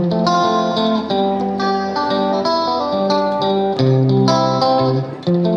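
Background music: a plucked-string melody of short ringing notes over bass notes.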